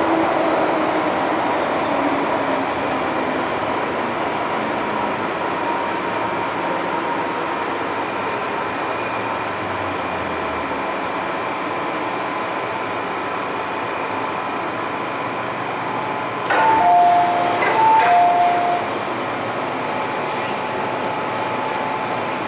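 Interior running sound of an MTR M-Train metro car slowing into a station, its motor whine falling in pitch over the first few seconds. About three-quarters of the way through, a two-note electronic chime sounds twice.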